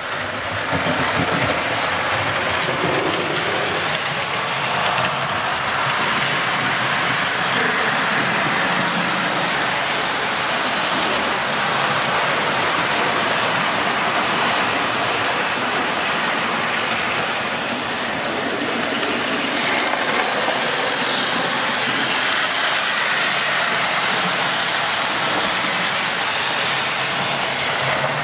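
Several model trains running round a layout: a steady whirring, rattling noise of motors and wheels on track.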